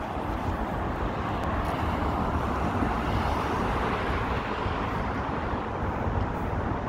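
Road traffic on a city street, with a vehicle driving past and swelling loudest about halfway through. Wind buffets the microphone with an uneven low rumble.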